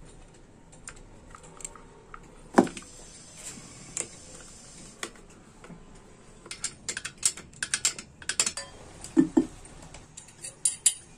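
Light clicks and clatter of a black plastic engine cowl being fitted and fastened onto a TVS 50 moped engine, with small tools and metal parts knocking. One sharper knock comes about two and a half seconds in, and quick runs of clicks fill the second half.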